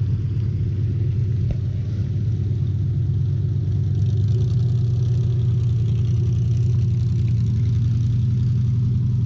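The LS-swapped 6.0 V8 of a lifted Jeep Wrangler YJ, fitted with headers, running steadily as it drives through deep water. It makes a low drone that gets a little louder about four seconds in.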